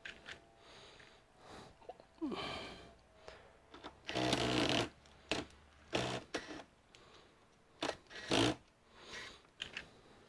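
Irregular clicks, scrapes and rustles from handling the parts of a disassembled all-in-one computer, with a longer scraping rustle about four seconds in.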